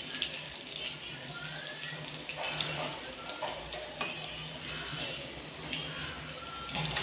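Chopped garlic sizzling softly and steadily in hot ghee in a steel kadai as it browns.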